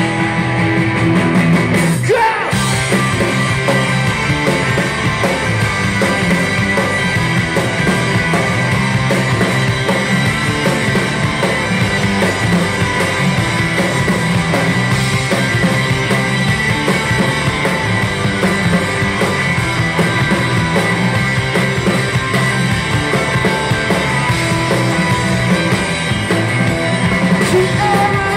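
Live rock band playing: two electric guitars, bass guitar and drum kit, loud and continuous, with a short break about two seconds in.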